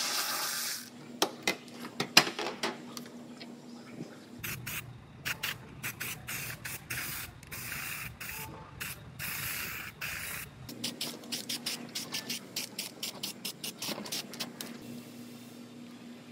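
Aerosol can of weld-through primer spraying in a quick series of short hissing bursts, between about 4 and 11 seconds in. Before it come a brief hiss and a few sharp clicks and knocks, and after it a run of fast small clicks.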